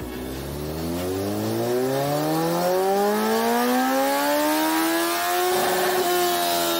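Kawasaki Ninja ZX-14R's inline-four engine pulling hard on a motorcycle dyno: the revs climb smoothly for about five seconds, waver briefly, then hold high.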